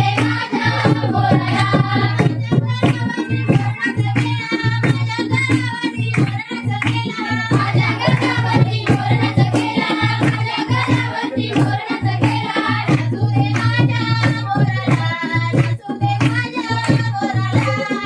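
Marathi folk song sung live, with a drum keeping a fast, steady beat under the voices.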